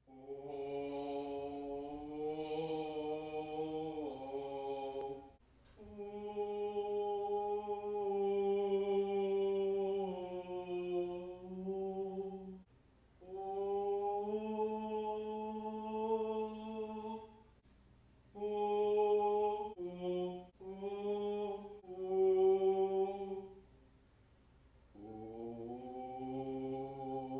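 Voices chanting a cappella in long held notes, in phrases of a few seconds with short breaks between them and a quicker run of shorter notes about two-thirds of the way through.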